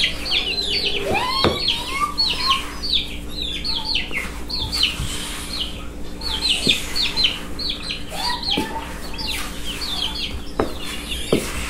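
Chickens calling: a steady run of quick, high, falling peeps, with a hen's lower call breaking in a few times.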